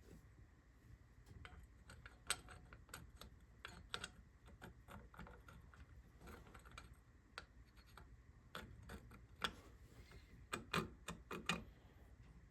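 Faint, irregular light clicks and taps of small metal engine parts and hand tools being handled and set down on a workbench, some in quick little clusters.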